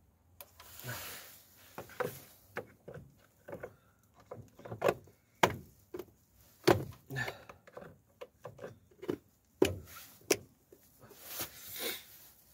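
Hard plastic clicks and knocks from a truck's fuse and relay box as relays and fuses are handled and its plastic lid is snapped shut, with rustling of hands and cable between them.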